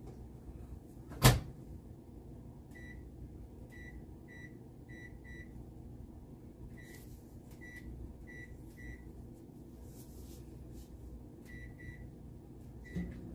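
Microwave oven door shutting with a sharp click about a second in, then a string of short, same-pitched keypad beeps as the cooking time is entered, over a low steady hum.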